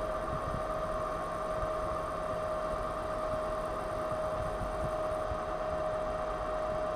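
Brazing torch flame burning steadily: a constant hiss with a steady hum.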